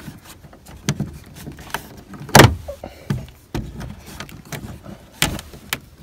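Scattered clicks and knocks from the interior door panel of a Chevrolet Silverado pickup being worked loose by hand, with one sharp, loud knock about two and a half seconds in and another near five seconds.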